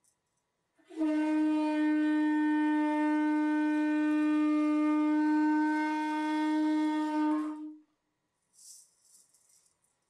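A small hand-held horn blown in one long, steady note of about seven seconds, starting about a second in, sounded as a ceremonial call to the direction 'within'.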